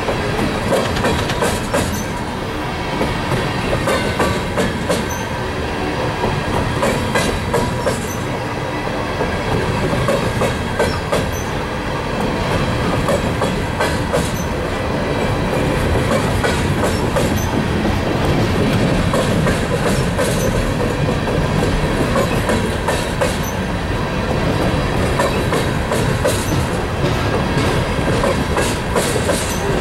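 Empty coal hopper cars rolling slowly by on steel wheels: a steady rumble and rattle of wheels on rail with irregular clicks and clacks, and a thin steady squeal above it.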